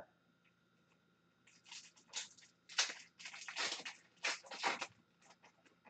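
A hockey card pack wrapper being torn open and crinkled by hand: a few seconds of irregular rustling and crackling, starting about a second and a half in.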